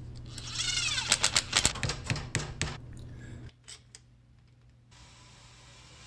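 A screwdriver driving a screw into a 3D-printed plastic part: a squeak that rises and falls in pitch, then a run of sharp clicks and knocks. Near silence follows about three and a half seconds in.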